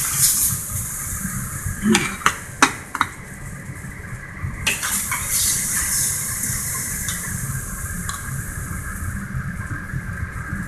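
Stir-fry sizzling in a hot wok while a metal spatula scrapes and knocks against the wok, scooping the food out. A handful of sharp clicks stand out about two to five seconds in, over a steady hiss and low rumble.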